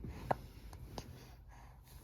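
Baby hiccuping: a short, sharp hic near the start and a fainter one about a second in.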